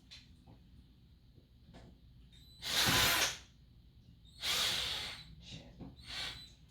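Cordless drill driver run in two short bursts of under a second each, with a fainter one near the end.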